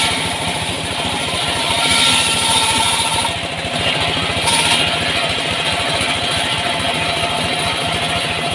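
Engine of a wood sawmill running steadily at an even speed.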